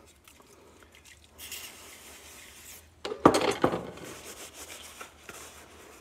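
Aerosol can of plastic prep spraying in a hiss lasting about a second and a half. A sharp knock with some clatter follows about three seconds in, then a cloth rubs over the plastic seatbelt buckle cover.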